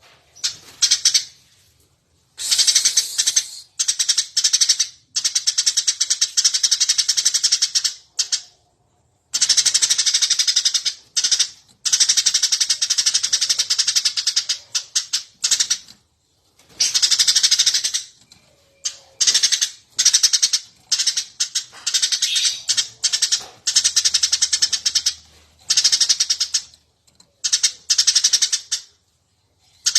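Eurasian tree sparrow chirping busily: fast, dense runs of sharp chirps in bouts of a few seconds, broken by short silences.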